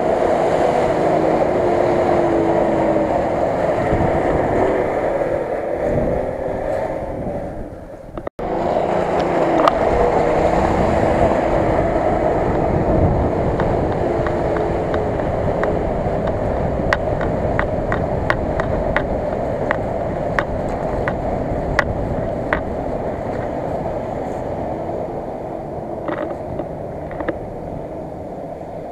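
Nissan Patrol 4x4 on tractor tyres revving as it ploughs through flooded marsh and deep mud, water splashing and churning around the wheels. A run of sharp clicks comes in the middle, and the engine fades as the truck pulls away.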